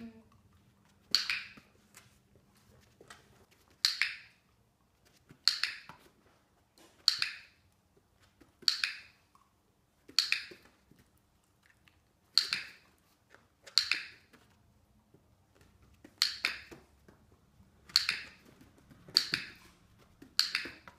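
Dog-training clicker clicking about a dozen times at intervals of a second and a half to two seconds, sharp and short. Each click marks the puppy's front paws on the upturned bowl and is followed by a treat.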